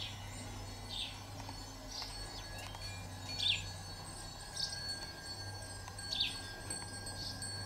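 Small metal bells on the pagoda spires tinkling in the breeze, short high notes about once a second with a faint lingering ring.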